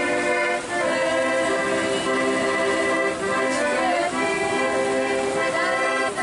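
Children's folk song-and-dance ensemble singing a Beskid highland folk song together in long, held notes, with short breaks between phrases.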